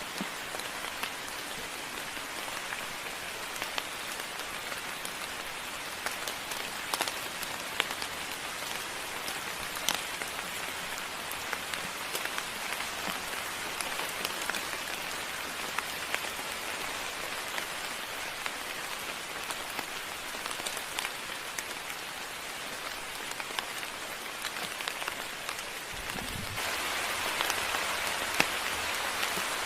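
Moderate rain falling steadily, with scattered sharp drip clicks among the hiss. The rain gets louder about four seconds before the end.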